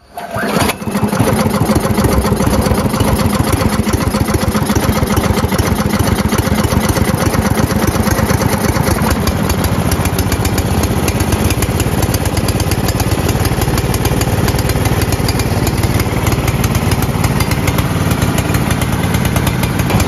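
Snowblower's small gas engine catching on a pull of the recoil starter cord, cold-started with the choke fully on and the fuel primed. It comes up within the first second, then runs steadily.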